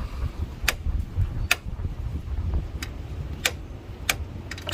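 About five sharp, unevenly spaced clicks over a low rumble: spark plugs being handled and set down, clinking against each other and the surface.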